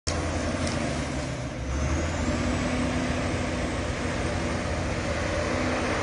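TG 120 crawler bulldozer's engine running steadily as the machine pushes a load of earth and roots with its blade.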